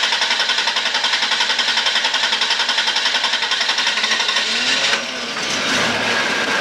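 Car V6 engine cranking on its electric starter in a steady, rapid rhythm for about five seconds before it catches, briefly rises in revs and settles into a running idle. The engine is hard-starting: it takes a long time to start.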